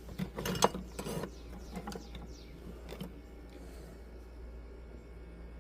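Small metal hand tools clicking and rattling as jeweler's pliers are picked up and handled, a quick flurry of clicks in the first second and a half, then a few scattered clicks.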